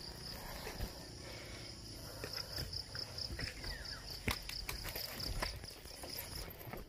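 Insect chirping in a high, even trill of about four or five pulses a second, stronger from about two seconds in. A few sharp knocks break through, the loudest about four seconds in.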